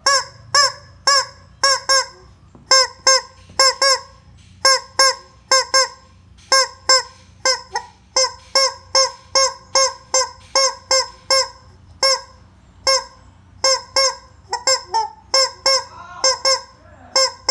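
Rubber chicken squeeze toy squawking over and over: short honking squeals, many in quick pairs, about two to three a second.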